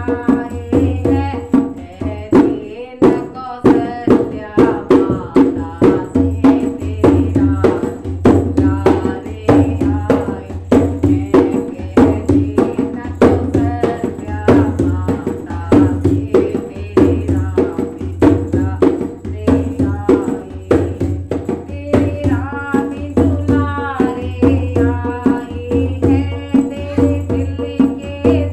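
A woman singing a Hindi devotional bhajan to her own dholak accompaniment, the hand drum keeping a steady rhythm of deep bass strokes and sharp slaps under the voice.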